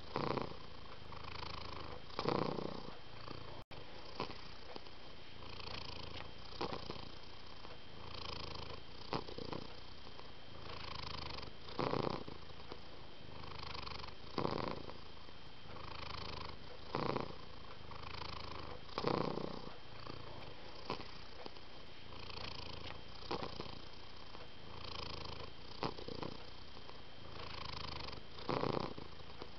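Domestic cat purring steadily, growing louder on each breath about every two seconds.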